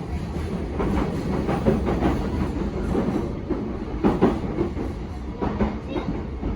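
Inside the car of a JR E233-7000 series electric train running at speed: a steady low rumble with irregular sharp clacks of the wheels passing over rail joints.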